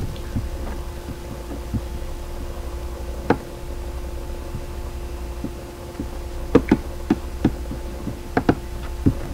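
Steady low electrical hum picked up by a laptop's microphone, with scattered short clicks as the computer is worked: one about three seconds in, then a run of them in the last few seconds.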